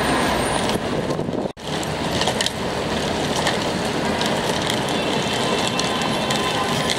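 Loud, steady rumbling street noise that drops out for an instant about a second and a half in.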